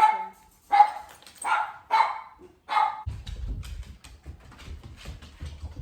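A dog barking, about five sharp barks in the first three seconds, followed by a low rumble with faint clicks.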